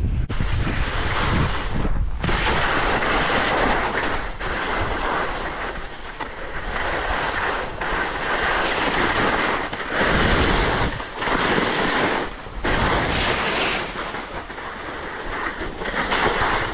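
Skis sliding and scraping over soft spring snow on a downhill run, a loud hiss that swells and fades and breaks off briefly several times, with wind on the microphone.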